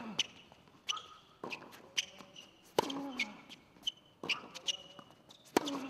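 Tennis rally on a hard court: rackets striking the ball and the ball bouncing, giving a sharp crack every second or so. The loudest hits, from the near player, come about three seconds apart. Between shots, sneakers squeak briefly on the court surface.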